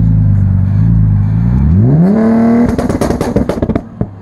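Audi S4 B5's tuned 2.7 V6 twin-turbo engine revved while stationary, climbing quickly about two seconds in and held briefly. As the throttle closes, the exhaust fires a rapid string of pops and bangs for about a second on the overrun ("popcorn"), with a single last pop as the engine settles back to idle.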